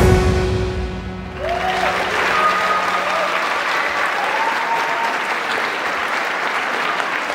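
An orchestra's final chord dies away, then from about a second and a half in a large audience applauds, with a few calls and cheers in the clapping.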